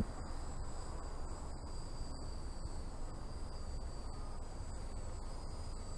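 Quadcopter drone in flight: a steady noise with a faint, even high-pitched whine.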